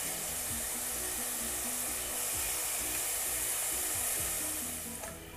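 Namak paray dough strips deep-frying in hot oil in a steel pot, a steady sizzle that eases slightly near the end.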